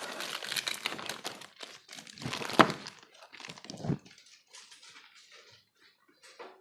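Action figure packaging handled up close: plastic and cardboard crinkling and rustling with a run of small clicks and knocks, the sharpest about two and a half seconds in, then a few fainter taps as the handling dies down.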